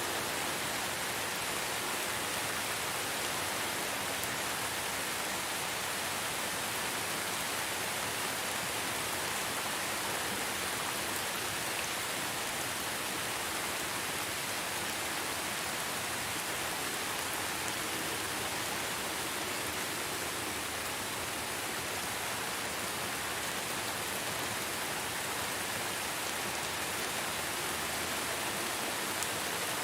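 Steady rainfall, an even hiss of rain with no changes or distinct events.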